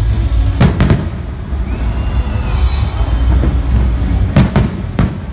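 Aerial fireworks exploding: a cluster of sharp bangs about half a second in and another near the end, over a continuous low rumble.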